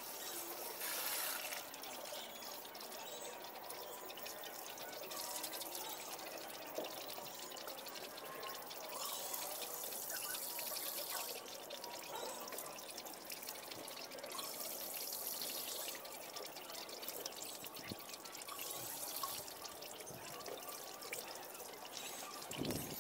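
Water trickling and pouring in a fish-pond drain pit, swelling in places as hands work in the water.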